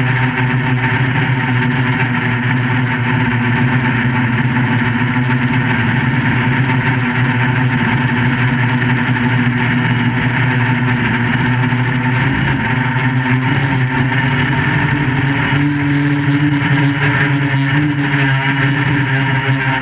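QAV400 quadcopter's electric motors and propellers in flight: a loud, steady buzzing hum, its pitch shifting upward about fifteen seconds in as the throttle changes.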